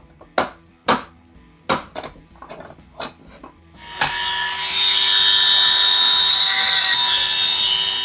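Several sharp metallic knocks and clicks as a reel crank is clamped in a steel bench vise. About four seconds in, a handheld rotary tool starts suddenly and runs at a steady high whine, cutting a small countersink into the stainless-steel screw of the crank knob.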